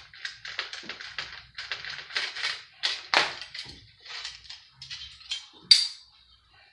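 Small steel cover on a PlayStation 3 circuit board being pried and worked off with a tool: a run of irregular metallic clicks, taps and rattles, with one sharp ringing click near the end.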